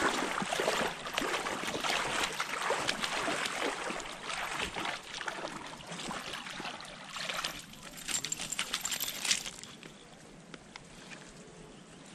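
A hooked pink salmon thrashing in shallow salt water, splashing repeatedly as it is drawn ashore. The splashing is heaviest at first and dies down after about nine seconds.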